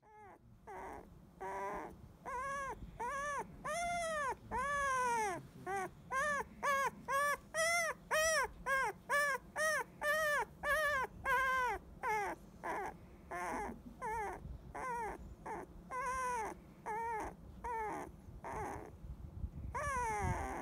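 Fifteen-day-old Labrador Retriever puppy whimpering: a long run of short, high, arching whines, about two a second in the middle, coming more slowly toward the end.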